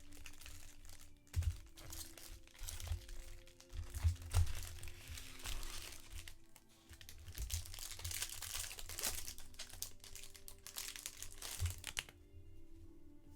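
Plastic wrappers of trading card packs being torn open and crinkled by hand, an irregular crackling that stops about 12 seconds in, over soft background music.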